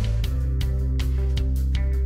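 Background music: a guitar-led track with a steady beat and a strong bass line.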